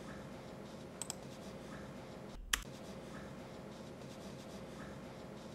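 Quiet room tone with a faint steady hum and a few sharp computer clicks from working a laptop. There is a quick double click about a second in and a single louder click about two and a half seconds in.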